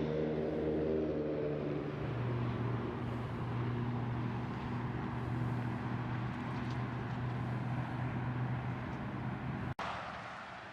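Car driving: a steady engine hum over road noise, its pitch dropping slightly about two seconds in. Near the end the sound cuts out for an instant and comes back quieter.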